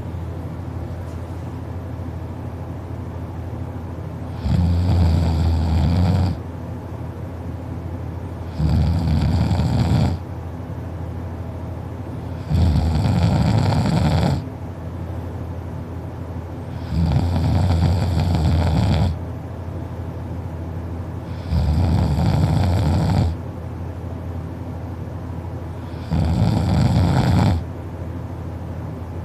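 A sleeping person snoring: six long, loud snores, each lasting about a second and a half to two seconds, at a steady pace of one every four seconds or so, with a steady background hiss in the gaps.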